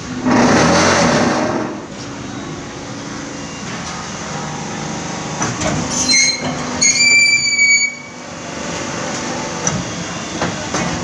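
Paver block making plant machinery running with a steady mechanical hum. A loud rushing surge lasts about the first second and a half, and a short high-pitched metallic squeal comes about two-thirds of the way through.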